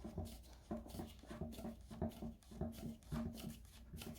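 A plastic shelf pole being twisted by hand into its threaded fitting, making a string of short rubbing squeaks, about three a second.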